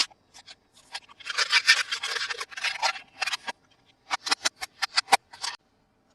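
Toy packaging being handled and opened: a stretch of crinkling, scratchy rustling, then a quick run of small sharp clicks and taps.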